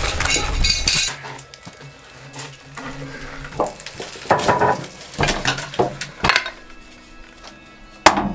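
A heavy log rolling and settling onto a steel sawmill bed with a low rumble in the first second, then a series of sharp metallic clanks and knocks with a short ring as a cant hook and the log are worked against the Wood-Mizer LT10 sawmill's steel bed.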